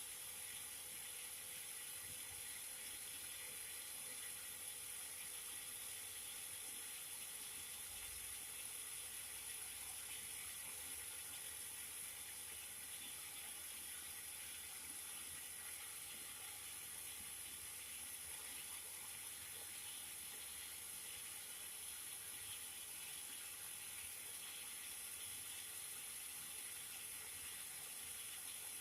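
Cotton candy machine running: a steady, even whirring hiss with a thin high whine, unchanging throughout.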